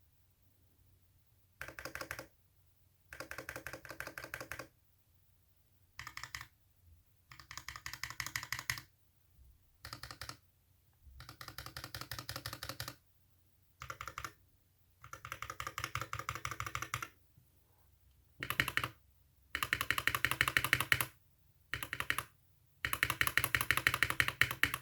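Typing on a mechanical keyboard with lubed Invyr Holy Panda tactile switches, a brass plate and PBT keycaps: bursts of fast keystrokes with short pauses between them. The bursts get louder toward the end.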